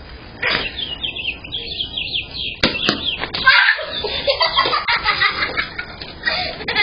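Children squealing and shrieking at play, heard through a security camera's microphone, with two sharp knocks about two and a half and three seconds in.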